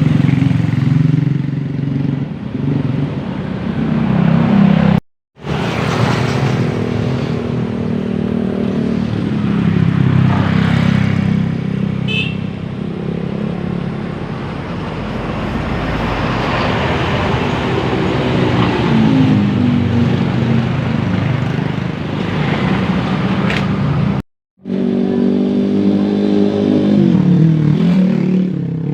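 Large buses' engines running and accelerating past, their pitch rising and falling, with traffic noise. The sound cuts out twice for a moment.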